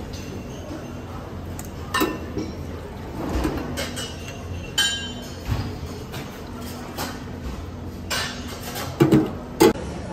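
A few scattered clinks and knocks, the loudest cluster near the end, over a steady low background hum.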